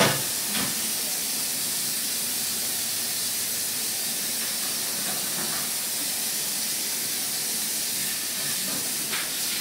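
Steady hiss of background noise, with a sharp click at the start and a lighter one about half a second later.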